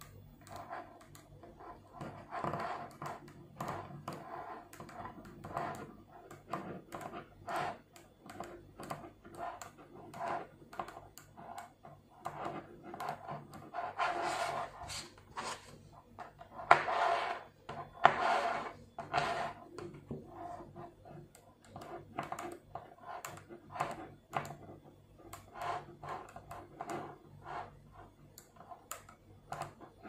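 5 mm neodymium magnetic balls clicking together one after another as they are snapped into place. There are louder, longer rattles about 14 and 17 seconds in.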